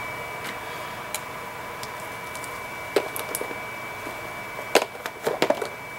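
A few small clicks and taps as lab items are handled, mostly in the second half, over a steady high-pitched hum in the room.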